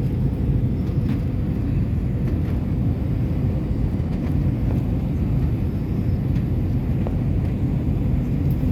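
Steady low roar inside an airliner's cabin on its descent: engine and airflow noise, with a faint steady hum above it.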